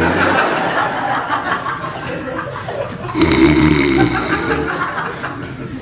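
Audience laughing, with a long mock snore from the storyteller, acting out a drunk man falling asleep, starting about three seconds in.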